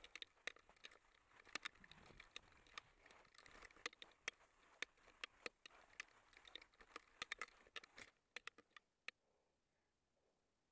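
Faint footsteps crunching in old snow: irregular sharp crunches and clicks that stop about nine seconds in.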